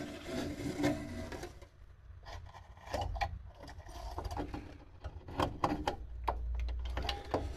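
Piaggio Ape 50 starter motor being worked out of its mount by hand: irregular metal scraping, clicks and knocks as it shifts against the engine casing and surrounding parts.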